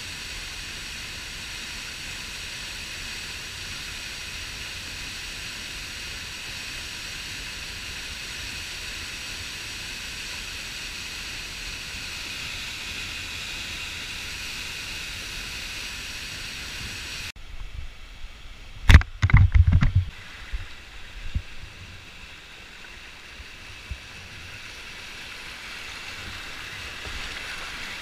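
Waterfall on a rocky creek, a steady rush of falling water. About two thirds of the way in the sound changes abruptly to quieter water, with a cluster of loud knocks close to the microphone and a few fainter ones after.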